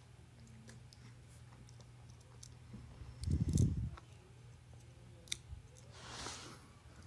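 Light clicks of a multi-tool pocket knife being handled as its tweezers are drawn out, with a dull bump about halfway through and a soft rustle near the end.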